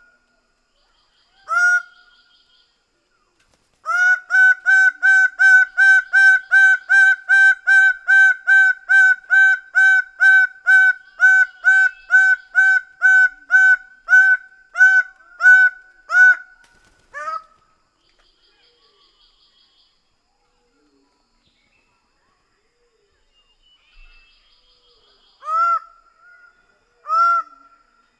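Greater bird-of-paradise calling: one loud call, then a long fast series of about two dozen repeated calls at roughly two a second that trails off, and after a pause of several seconds two more calls near the end.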